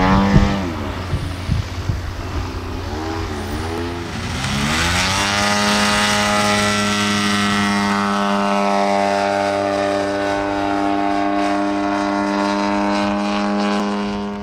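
Radio-controlled model aerobatic plane's engine and propeller: its pitch swings up and down with the throttle for the first few seconds, then climbs at about four seconds to a high, steady note held for some ten seconds before cutting off.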